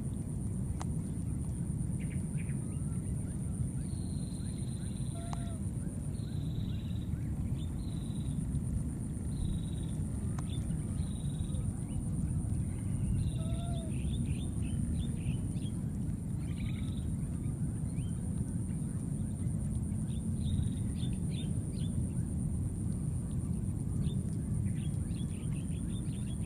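Outdoor field ambience: a steady low rumbling noise with a constant thin high whine over it. Short high chirps from birds come and go throughout.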